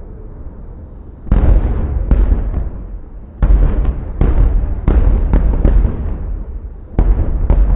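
Aerial fireworks shells bursting in a series of about nine sharp booms, some in quick succession, each trailing off in a deep rumble.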